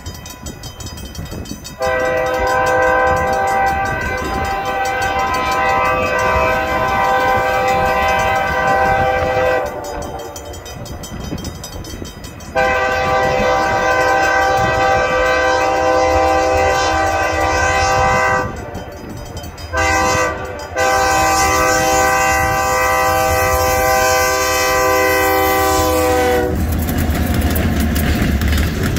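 Freight locomotive's multi-chime air horn sounding the grade-crossing signal: long, long, short, long. The horn stops about 26 seconds in, and the train passes close by, its wheels rumbling and clattering over the rails.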